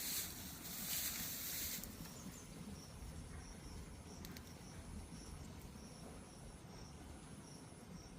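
Insects chirping: a steady high-pitched insect whine with short chirps repeating about twice a second. A louder hissing noise fills the first two seconds, then drops away.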